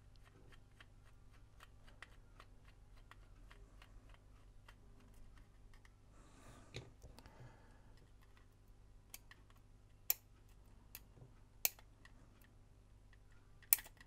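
Small screwdriver and plastic camcorder casing parts clicking and tapping as tiny screws are undone and the parts are worked apart: a run of light ticks, a brief scrape in the middle, and a few sharper clicks in the second half.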